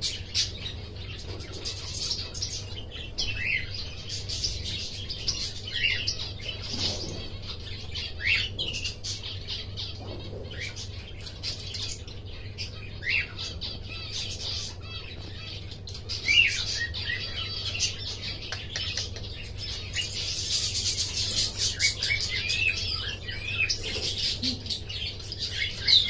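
Domestic canary chirping: short upward-sweeping chirps every second or two, coming faster and joined by a denser high twittering in the last third.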